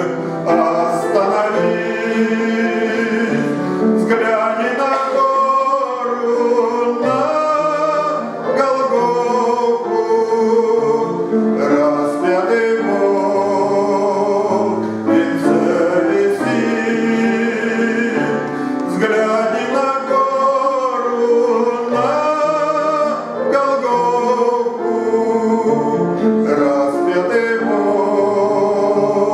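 A man singing a Christian song with vibrato over instrumental accompaniment.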